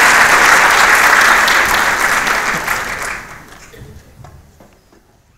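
Audience applauding, a dense even clapping that begins to die away about three seconds in and fades out by the end.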